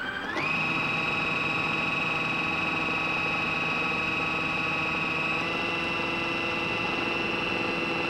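Food processor motor running steadily as it spins dry flour, with a steady whine that comes up to full speed in the first half second. Its tone shifts slightly about five seconds in, as olive oil is drizzled in through the feed tube.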